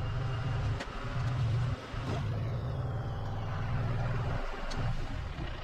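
Tractor engine running under load, a steady low hum with a few brief dips, while the tractor's forks lift and roll a big oak log.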